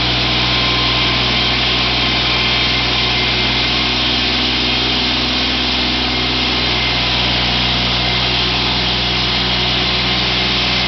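EDT Eurodima FS 450 walk-behind joint cutter running steadily while it cuts: its engine's even drone under the constant hiss of the water-fed blade grinding a groove into the floor.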